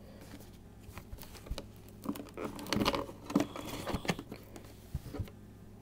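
Hands opening a cardboard jigsaw puzzle box: scattered light taps, scrapes and rustles of the lid, getting busier from about two seconds in.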